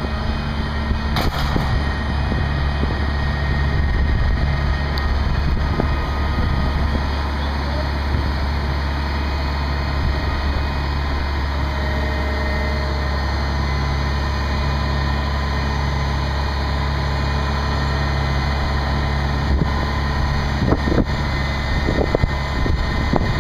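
Crane's engine running steadily under load while it holds a heavy rooftop air-conditioning unit aloft: a loud, even, low hum.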